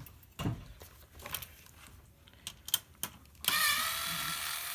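Small sharp metallic clicks and ticks of a screwdriver and loose parts on a printer's casing. About three and a half seconds in, a steady whirring hiss starts suddenly and keeps going.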